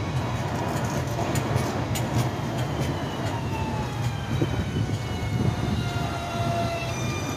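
Alstom Citadis Dualis tram-train running: its electric traction motors whine in several thin tones that slowly fall in pitch over a steady low rumble. A few sharp clicks come about one to two seconds in.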